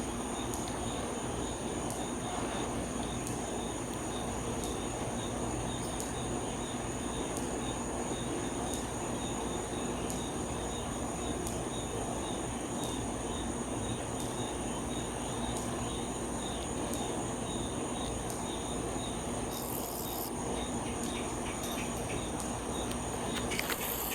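Crickets chirping steadily over constant outdoor background noise, a thin high trill with faint chirps about three a second.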